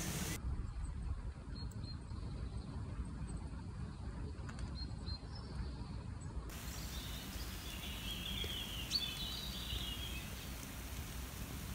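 Outdoor garden ambience: a steady low rumble with faint, scattered bird chirps, most of them in the second half.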